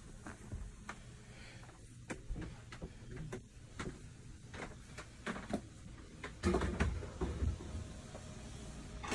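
Scattered light clicks and knocks from handling and movement, with a run of louder low thumps about six and a half seconds in.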